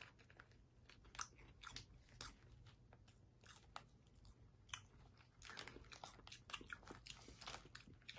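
Faint, scattered crunches of a crunchy snack being bitten and chewed, thickening into a denser run of crunching over the last few seconds.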